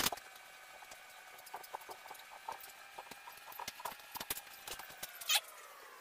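Scattered light taps and clicks of feet on a small metal step ladder and a magnetic level being set against a steel barn-door track, with a sharper click at the start and another about five seconds in. Under them runs a faint steady whine that dips slightly in pitch near the end.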